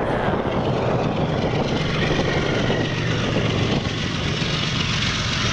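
Goods train of tank wagons rolling past, a steady low drone under a rushing noise.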